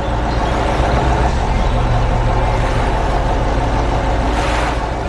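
Heavy excavator diesel engine running steadily with a deep rumble, and a short hiss about four and a half seconds in.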